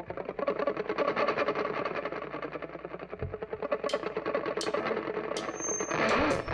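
Amplified electric instrument intro: a rapid, evenly pulsing tone, chopped many times a second. A few sharp clicks come about four seconds in, and the sound swells near the end just before the drums come in.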